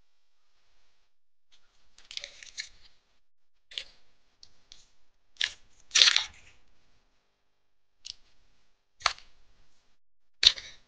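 A garlic bulb broken apart and its cloves peeled by hand: the papery garlic skins crackle and crunch in short bursts, the first about two seconds in, one to two seconds apart.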